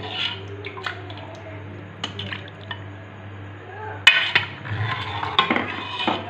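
Kitchen utensils clinking against a cooking pot: a handful of separate clinks, the loudest about four seconds in, over a steady low hum.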